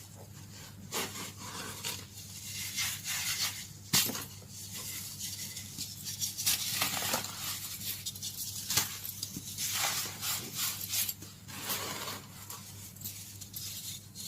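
Baking soda being crushed, with irregular crumbly crunches and scrapes and one sharp crack about four seconds in.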